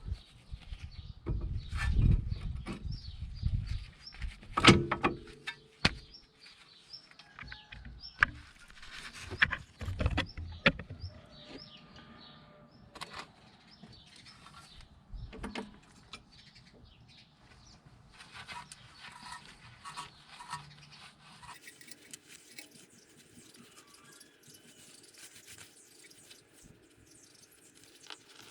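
Metal parts and tools handled during brake and wheel hub work: a string of irregular knocks, clinks and scrapes, loudest in the first half and sparser after that, with faint bird chirps in the background.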